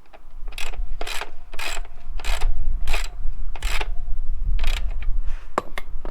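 Socket ratchet being worked back and forth to snug up the rear axle nut of an enduro motorcycle, each back-swing a short burst of ratchet clicks. There are about nine strokes, less regular near the end.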